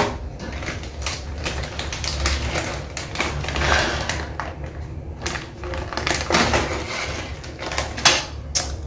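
Rummaging through earrings: irregular light clicks and rattles of small hard objects being handled, with a few louder knocks near the end.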